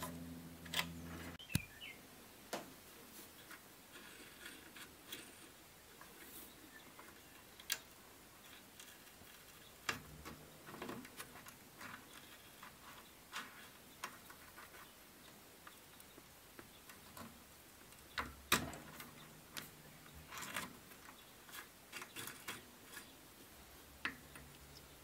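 Scattered light clicks and taps of small steel parts of a Fichtel & Sachs Torpedo mod 29 three-speed hub being handled: the sun gear being turned on the threaded axle, then parts being worked into a grease-packed bearing cup.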